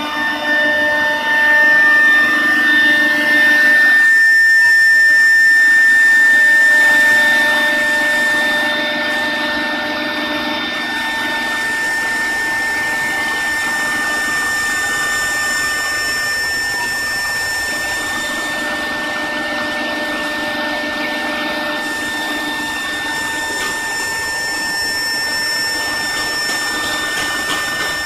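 CNC wood router's spindle motors running with a steady high whine and mechanical noise, louder for a few seconds near the start and then settling to an even level.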